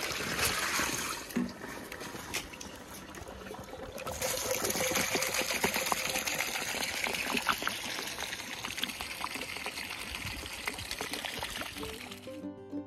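Maple sap pouring from a pail through a cloth filter into a bucket of slushy ice, splashing and trickling. The flow eases for a couple of seconds, then runs steadily again from about four seconds in. Music comes in near the end.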